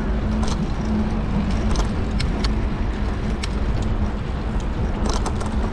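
Steady rush of wind and road noise from a moving bicycle, with a low steady hum and a few sharp clicks or rattles here and there.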